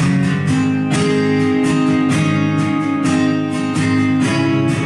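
Instrumental backing track of a pop song playing, led by steadily strummed acoustic guitar.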